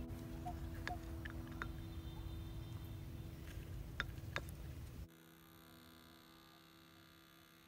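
Quiet background with a low rumble and faint steady hum, broken by a few light clicks and taps from eating with a wooden spoon and clay pot, the sharpest about four seconds in. The level drops suddenly about five seconds in.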